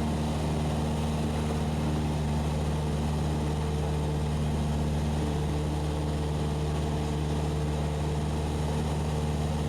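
Cessna 172SP's four-cylinder Lycoming engine and propeller droning steadily in flight, heard inside the cabin.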